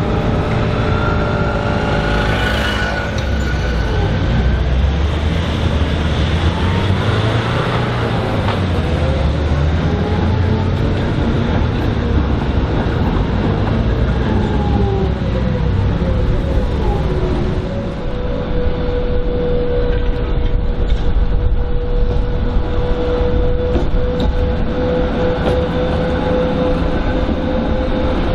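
GVB trams running past on street track: a steady rumble of wheels on the rails, with motor whines that glide up and down in pitch in the first half and a steady whine from a little past the middle onward.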